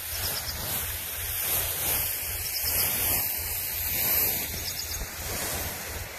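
Steady rushing hiss of a high-pressure spray gun jetting pesticide over a mung bean crop, fed by a tractor-driven pump, with wind buffeting the microphone.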